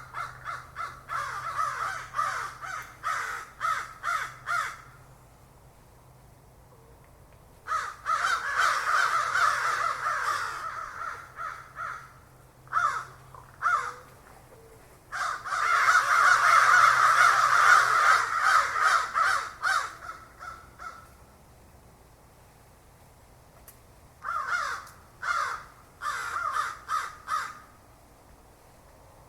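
Crows cawing in repeated bouts, several calls overlapping at their busiest, with quiet gaps of a few seconds between the bouts.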